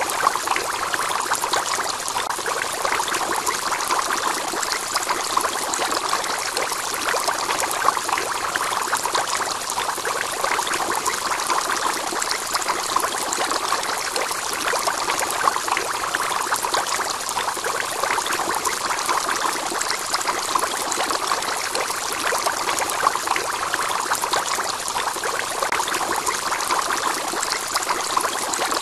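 Aquarium external filter's return water splashing and trickling into the tank: a steady running-water sound with a fine crackle.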